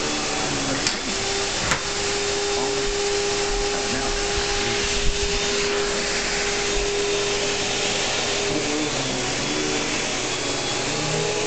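Hoover Empower Commercial upright vacuum cleaner running steadily: a loud, even rush of air with a steady motor whine over it. Two brief clicks come about one and two seconds in.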